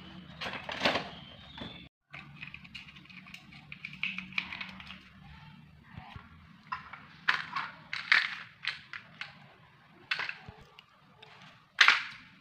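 Hard plastic toy building blocks clattering and knocking on a tile floor as kittens play among them: irregular sharp clicks, a quick cluster about eight seconds in and the loudest knock near the end.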